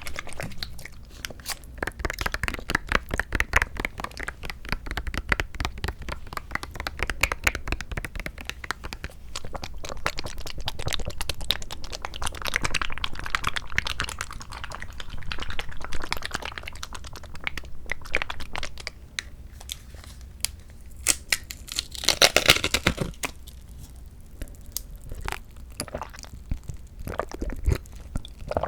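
Plastic packaging of a Sunkist mandarin fruit cup being handled and opened, with close-up crinkling and crackling and a louder tearing stretch about three-quarters of the way through.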